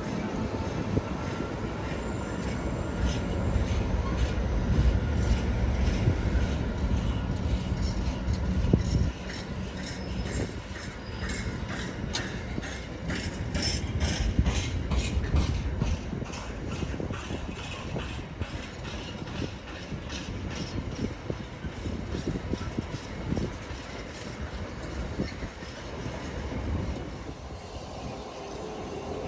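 A train passing on the main line: a heavy low rumble, loudest in the first nine seconds, then a long run of rhythmic wheel clicks over the rail joints that eases off toward the end.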